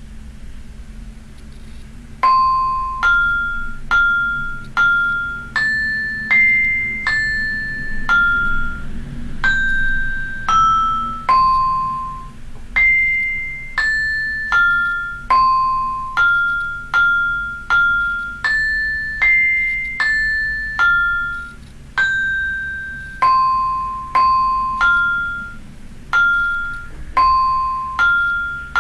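Synthesized vibraphone tones from the Vibrafun Android app, sounding one at a time as its touchscreen bars are tapped with mallets: a simple melody of single notes, each struck sharply and ringing briefly, starting about two seconds in.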